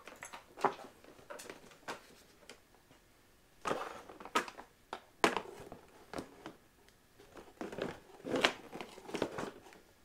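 Plastic fenders, side shrouds and seat being handled and fitted onto a pit bike frame: scattered clicks, knocks and rustling of plastic, louder in clusters about four seconds in, around five seconds, and near the end.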